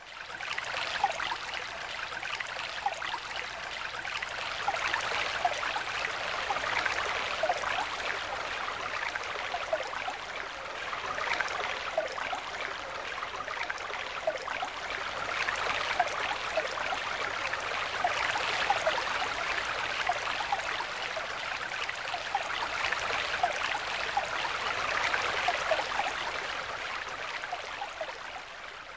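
Running water: a brook trickling and burbling with many small bubbly plinks. It fades in at the start and tapers off near the end.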